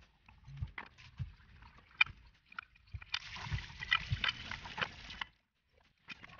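Hands scrubbing a small plastic motorcycle body part with a soapy sponge, with soft squelches, rubs and light knocks. About three seconds in, water from a garden hose splashes over the part into a concrete sink for about two seconds, then stops abruptly.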